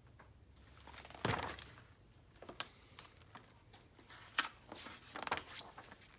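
Paper rustling and crinkling in a few irregular bursts, with small sharp crackles: a picture-book page being handled and turned. The loudest rustle comes about a second in.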